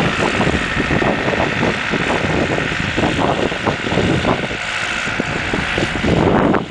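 Ford farm tractor's engine running during snow plowing, with wind buffeting the microphone in irregular gusts.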